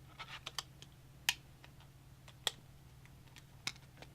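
Scattered light clicks and taps of hands handling a mini-ITX motherboard and its small parts while fitting an M.2 drive, with a few sharper clicks about a second apart, over a faint steady low hum.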